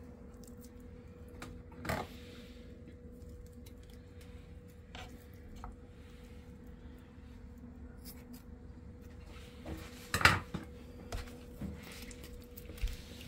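Scattered clicks and knocks of kitchen utensils against a dish, one about two seconds in and the loudest cluster around ten seconds in, over a faint steady hum.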